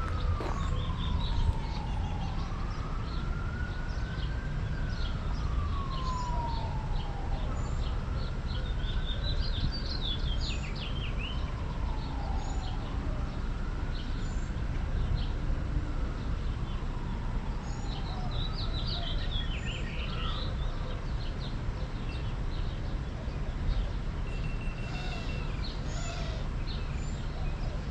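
Emergency vehicle siren in a slow wail, rising and falling about every five seconds and fading out about twenty seconds in. Birds chirp in short bursts over a steady low rumble.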